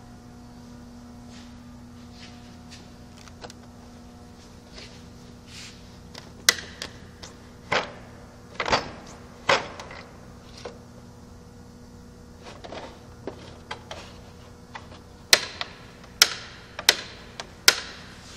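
Metal clicks and knocks from loose parts being handled on a steel tool chest: scattered light clicks, a run of loud knocks through the middle, and four sharp knocks with a short ring near the end, over a steady low hum.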